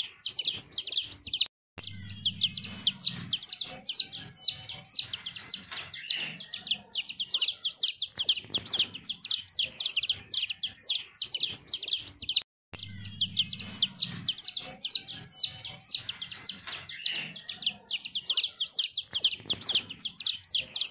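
Several newly hatched chicken chicks peeping continuously: many overlapping, high, downward-sliding chirps, several a second. The sound cuts out briefly twice.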